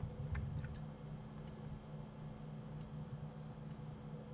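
Computer mouse and keyboard clicks: about six short, sharp clicks at irregular intervals over a steady low electrical hum.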